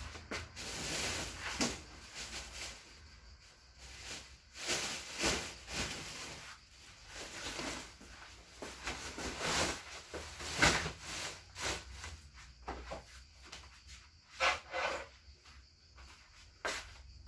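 Things being handled and shifted about by hand: irregular scrapes, rustles and knocks, the sharpest knock about ten and a half seconds in.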